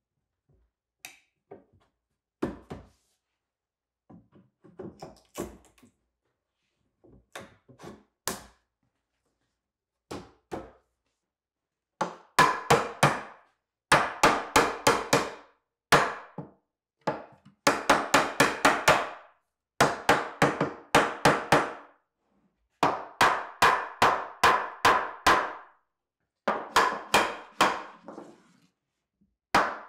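Rubber-faced mallet knocking the rails and stiles of a wooden frame-and-panel together, closing up the joints. A few scattered knocks at first, then from about halfway through quick runs of sharp blows, several a second, with short pauses between the runs.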